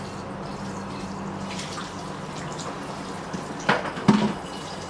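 Kitchen tap water running and dripping into a sink during dishwashing, with two sharp knocks of dishware against the sink in quick succession near the end.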